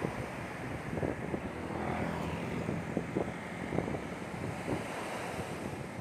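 Small waves breaking and washing up on a sandy beach, with wind buffeting the microphone.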